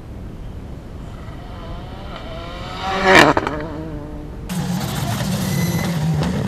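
Rally car approaching at speed, its engine note climbing to a loud pass close by about three seconds in, then falling away. After a cut, another rally car runs at steady high revs, its tyres hissing on wet tarmac.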